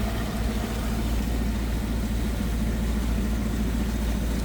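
Boat engine running steadily under way, a constant low drone with a hiss of wind and water over it.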